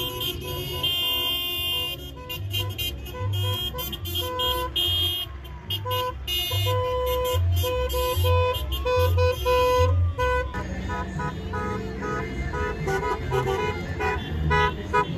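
Car horns tooting in repeated short beeps from a slow procession of vehicles, with a siren-like tone rising and falling in the middle. Underneath is a low pulsing bass, like music from a car stereo.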